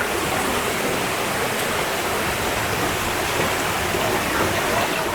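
Steady, dense rushing noise of falling water.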